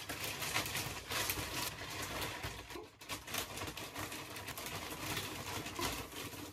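Plastic compression storage bag crinkling and rustling as it is handled, a dense run of quick crackles.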